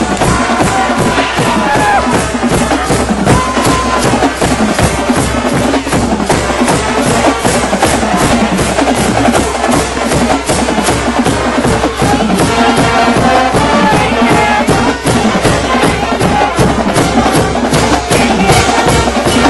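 Music with a steady, fast percussion beat.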